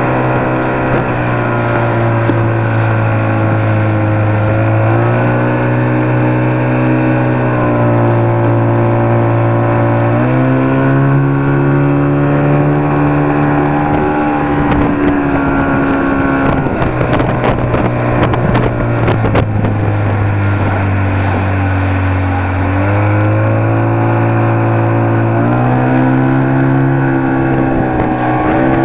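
Motorboat engine running under way, its pitch holding steady for a few seconds at a time and then sliding up or down as the throttle changes, with wind buffeting the microphone.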